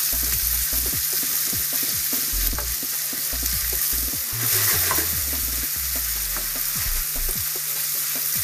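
Minced meat, bacon and onions sizzling steadily in a frying pan as the meat browns for chili, with scattered clicks of a utensil stirring the pan.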